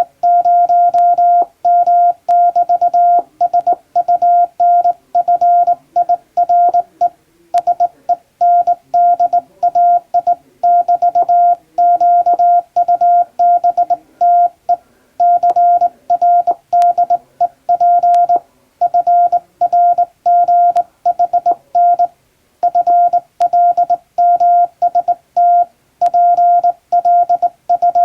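Morse code sent by hand on a straight telegraph key, heard as a steady mid-pitched beep keyed on and off in dots and dashes, grouped into letters and words with short pauses between them.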